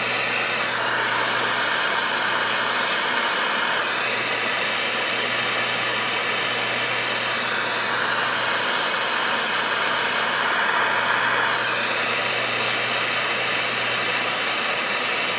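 Jeweller's soldering torch flame hissing steadily while it heats silver filigree wire to flow the solder. The hiss brightens a little twice as the flame is moved.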